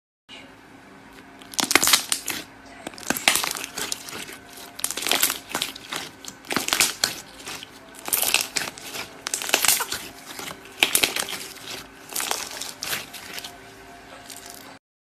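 Slime being squeezed and pressed by hand, crackling and popping in repeated crunchy bursts, often in pairs about every second and a half; it starts after a short silence and cuts off abruptly near the end.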